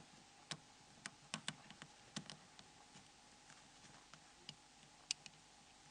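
Faint, irregular small clicks and ticks of a phone's small plastic and metal parts being handled. About a dozen sharp clicks, bunched in the first two and a half seconds, with a louder single click about five seconds in.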